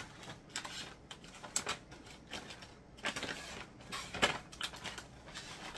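Plastic snack packets being handled and sorted: irregular rustling and light taps, with a longer crinkle about three seconds in and a sharper tap a little after four seconds.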